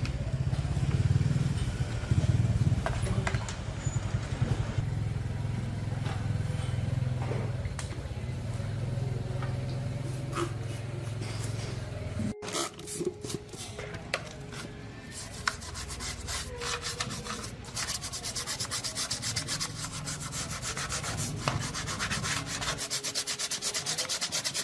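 Abrasive rubbing or sanding on a workpiece. A low hum runs under the scraping for the first half, cuts off sharply about halfway, and fast, even scratching strokes follow.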